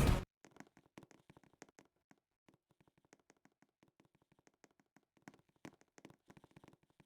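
A loud music track cuts off abruptly a moment in, leaving near silence broken only by a few faint, scattered clicks.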